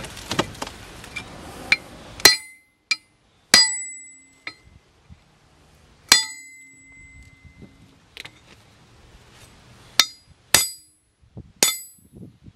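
Hand hammer striking the steel lower end of a removed Jeep Grand Cherokee WK front strut, trying to drive out a stuck bolt without heat. About six sharp metal-on-metal blows at uneven intervals, several leaving a short ringing tone.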